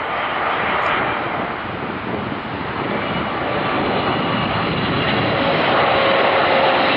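Boeing 777-300ER's twin GE90-115B turbofan engines on final approach with gear and flaps down, passing low overhead: a broad jet roar that grows louder, with a thin whine coming in near the end and sliding slightly down in pitch.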